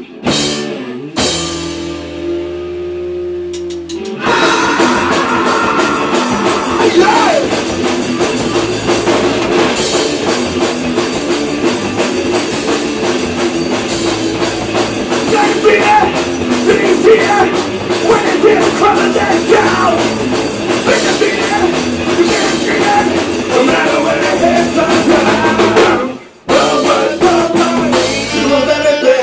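Punk rock band playing live: a sparser passage with held low bass notes, then the full band with drums and distorted guitar comes in about four seconds in. The band stops for a moment near the end and comes straight back in.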